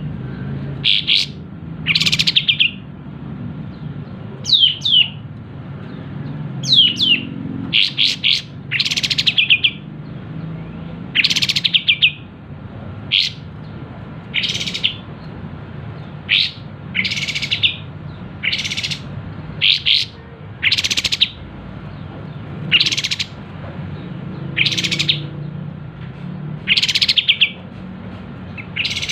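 Sooty-headed bulbul (burung kapas tembak) calling over and over in sharp, bright bursts about every second or two, some as quick rattling trills. A faint steady low hum runs underneath.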